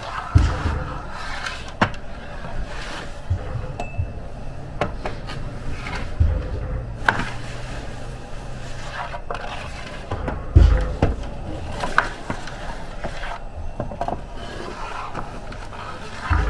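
A long metal bread peel scraping and knocking on the brick floor of a bread oven, giving irregular clacks and scrapes with several low thumps.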